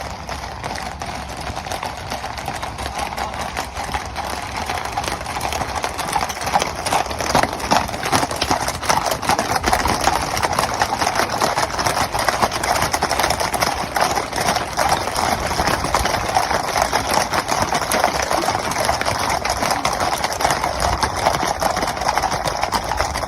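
Many horses galloping together in a charge: a dense, continuous drumming of hooves that swells louder about six seconds in and then keeps up.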